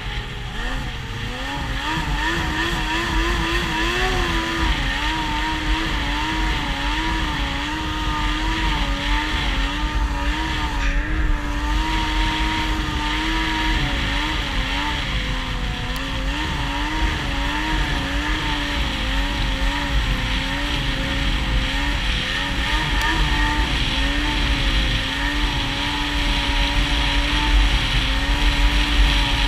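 Yamaha SX Viper 700 triple two-stroke snowmobile engine running at a steady cruise, its pitch wavering gently up and down with small throttle changes, over a steady rushing noise.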